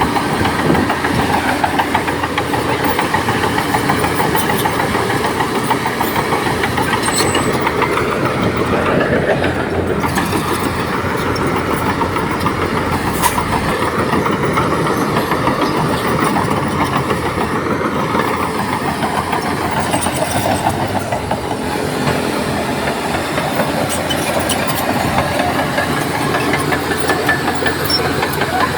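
Crawler bulldozer's diesel engine working under load, with a steady fast clatter of steel tracks. The engine note rises and falls about a third of the way in, and again just past the middle.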